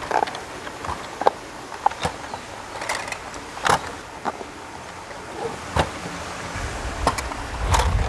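Irregular clicks and knocks of plastic and rubber as a pool cleaner's tires are worked off and onto its wheels by hand, with a low rumble near the end.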